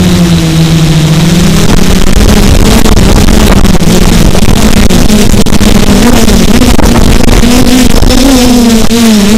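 Quadcopter's brushless motors (Quanum 2814 880KV) spinning 10-inch carbon-fibre propellers, picked up by the onboard camera: a loud, steady buzz. Its pitch dips briefly in the first second or so, then rises and wavers up and down as the throttle changes.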